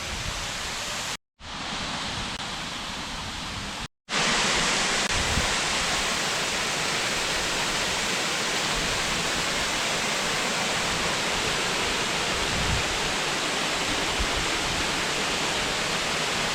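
Steady rushing roar of a waterfall. It cuts out briefly twice, and from about four seconds in it comes back louder and hissier.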